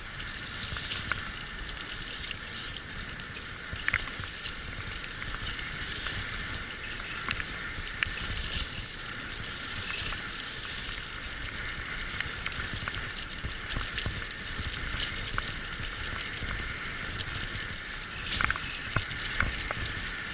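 Six-dog sled team pulling a wheeled dryland rig along a forest trail: a steady crunching rattle of the wheels over the track, with scattered clicks and knocks.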